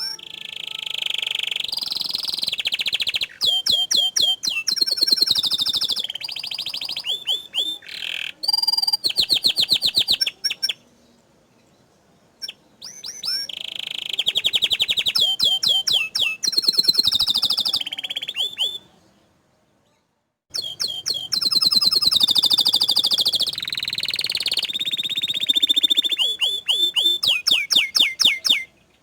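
Domestic canary singing in three long bouts with short pauses between, full of fast rolling trills and long held high notes.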